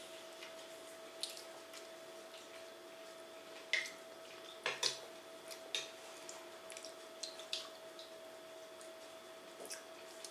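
A young child eating salad with their fingers: faint wet clicks and smacks of chewing and of picking at the leaves, scattered irregularly, over a faint steady hum.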